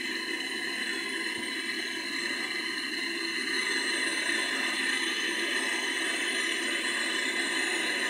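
Gas brazing torch burning steadily with its flame on a refrigerator compressor's pipe joint, heating it for brazing; the flame noise gets a little louder about three and a half seconds in.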